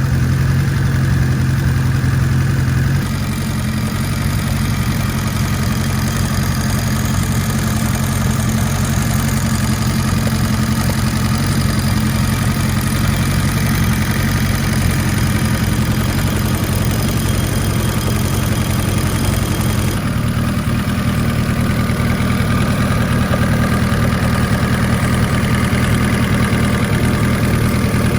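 Kawasaki Z1-R air-cooled inline-four engine idling on a stand, out of the frame, with its note shifting slightly about three seconds in. It is a noisy engine, top end and bottom end both.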